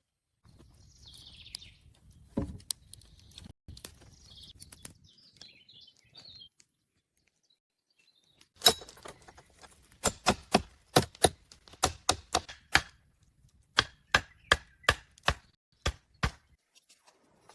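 A blade chopping wood: about twenty sharp strikes in quick runs of two to three a second through the second half. Before that there is faint rustling with a single knock.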